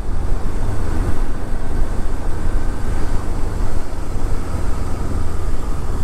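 KTM 390 Adventure motorcycle riding at low speed: its single-cylinder engine running steadily under a low rumble, mixed with wind and road noise.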